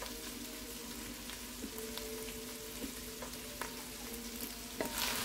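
Shredded chicken frying in butter in an enameled cast-iron Dutch oven: a steady sizzle, with a few sharp clicks near the end.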